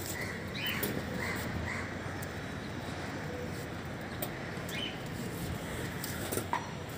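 A few short, high bird chirps over steady city background noise: a cluster in the first two seconds and another near the five-second mark.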